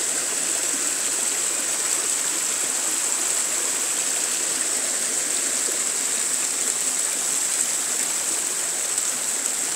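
Small mountain stream flowing over rocks and little cascades: a steady, even rush of water.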